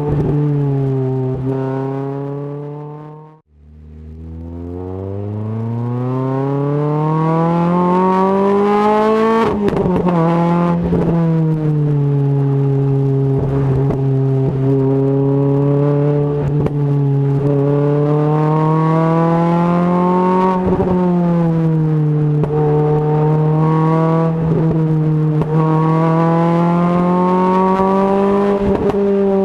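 Renault Clio RS 200 engine and Supersprint exhaust under way. The note falls at first, fades out briefly and comes back about three and a half seconds in. It then climbs steadily under acceleration for about six seconds, drops sharply at a gear change, and runs on at a fairly steady pitch with small rises and dips and a few short cracks.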